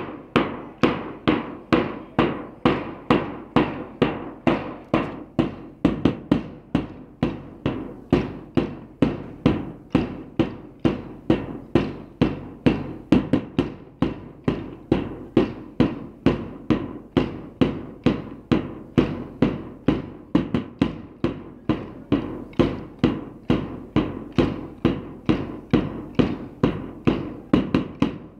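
Many hand-held drill dumbbells struck together in unison by a group doing a dumbbell drill. The clacks keep a steady rhythm, a little over two a second.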